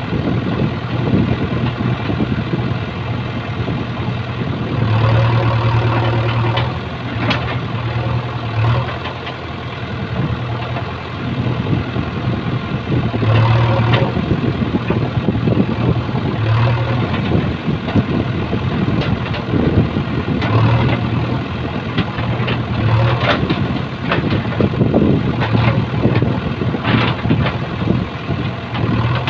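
JCB 3DX backhoe loader's diesel engine running steadily, its revs swelling every few seconds as the hydraulic backhoe arm digs and drags soil, with scraping and knocks from the bucket in the earth and stones.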